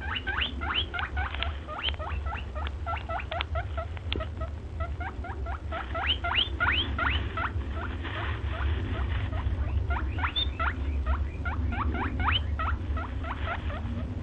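A small animal squeaking: a rapid, continuous run of short, high squeaks that each rise in pitch, about three or four a second, over a steady low hum.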